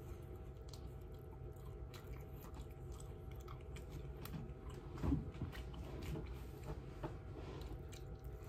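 A person chewing a piece of fried chicken strip close to the microphone, with many faint mouth clicks. There is a louder thump about five seconds in.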